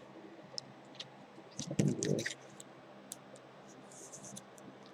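Light clicks and rustles of trading cards being handled and flipped, with a brief muttered sound about two seconds in.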